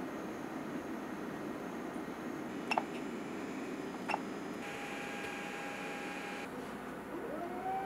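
Creality Ender-3 V2 3D printer: two short beeps from its control knob as the menu is worked, then a steady motor whine for about two seconds. Near the end a whine rises and falls in pitch as a stepper motor speeds up and slows down, over a steady hiss.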